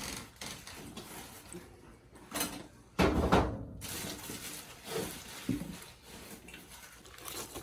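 Handling noises from drywall repair work: scattered scrapes and knocks, the loudest a short burst about three seconds in.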